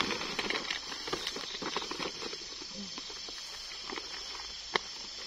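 Plastic sack rustling and crinkling as it is handled, a dense run of crackles in the first couple of seconds thinning out later, with one sharp click near the end. Insects chirring steadily behind.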